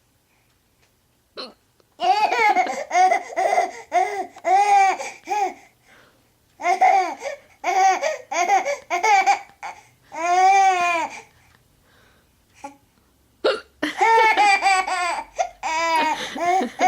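A baby laughing in runs of short, high giggles, about two a second, with a longer drawn-out laugh near the middle. Between the runs comes a sharp single hiccup from the mother, about a second and a half in and again about thirteen seconds in, each followed by a fresh burst of laughter.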